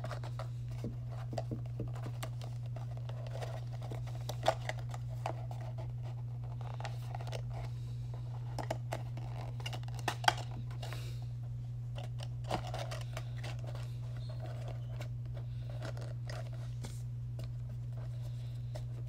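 Cardboard and paper packaging of a small watch box being handled and pressed into place: scattered rustles and light clicks, a few sharper snaps, the loudest about ten seconds in. A steady low hum runs underneath.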